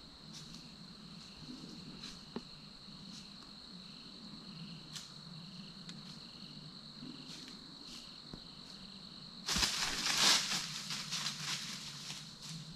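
Night insects trilling steadily, with a few faint scattered ticks. About nine and a half seconds in, a loud crunching rustle in dry leaves lasting about three seconds: a white-tailed buck walking close by on the forest floor.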